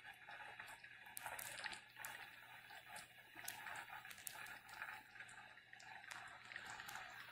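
Pot of beef soup simmering: faint bubbling with scattered small pops.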